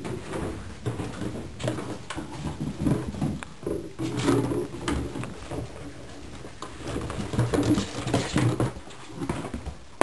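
Empty plastic bottle crinkling and clattering on a tile floor as golden retriever puppies chew and bat it about, in a rapid, irregular run of crackles and knocks.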